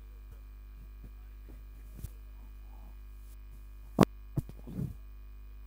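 Steady electrical mains hum, with a few short sharp clicks, the loudest about four seconds in.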